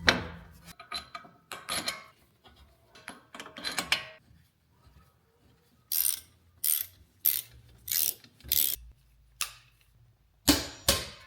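Ratchet wrench clicking in repeated strokes, the pawl ticking as the handle swings back, with a regular run of about one and a half clicks a second in the middle and two louder clicks near the end.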